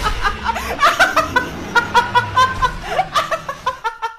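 Laughter: quick runs of short giggling laughs, tailing off near the end.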